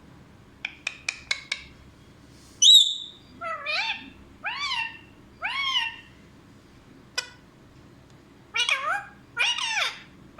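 Pet parrot calling: a string of short, rising-and-falling calls, some in quick pairs, with one loud sharp screech a little under three seconds in. Four quick clicks come about a second in and another single click later.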